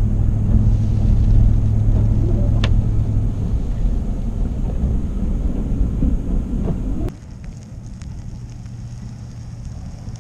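Ford F-350 Super Duty plow truck heard from inside the cab while driving: a steady low engine drone and rumble. About seven seconds in, it drops suddenly to a fainter rumble of the truck heard from outside.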